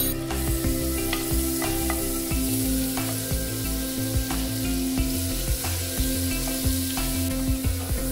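Butter sizzling and foaming as it melts in a hot nonstick frying pan, stirred with a wooden spatula, over background music.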